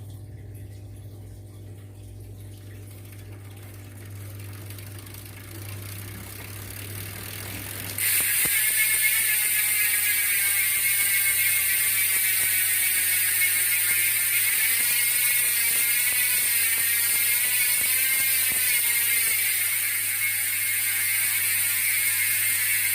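Nautilus Click R rear hub's six-pawl freehub ratcheting as the wheel freewheels: a dense, rapid, loud clicking buzz, the 'cricket' sound. It is quieter at first, then jumps suddenly louder about 8 seconds in, and its pitch wavers as the wheel speed changes.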